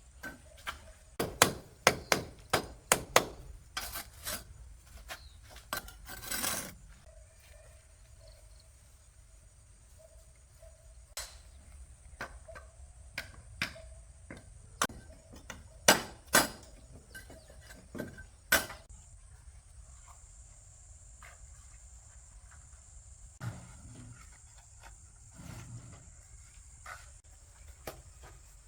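A series of sharp knocks and taps at irregular intervals, bunched together in the first few seconds and again in the middle, with a short scraping rush about six seconds in. A faint steady high whine runs underneath.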